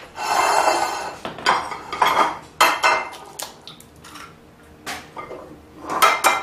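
Glassware clattering on a kitchen counter: a glass dish is pushed along and set down, then a string of sharp clicks and knocks as eggs are taken from a glass bowl and one is cracked on the rim of the dish.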